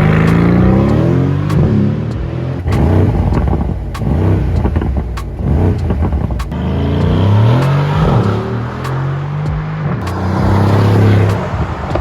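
Mercedes-AMG GLC 63 S's 4.0-litre twin-turbo V8 exhaust revving up and falling back several times, with short sharp cracks between the revs.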